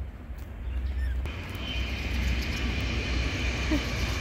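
Steady mechanical noise: a low rumble, joined about a second in by a steady higher whine.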